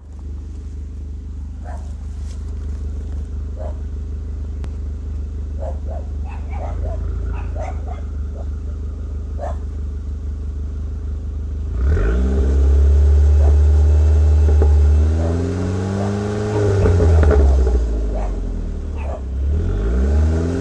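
A 2005 PT Cruiser GT's turbocharged 2.4-litre four-cylinder engine through its stock exhaust, idling steadily. About twelve seconds in it is revved: one held rev of a few seconds, then two shorter blips, each rising and falling in pitch.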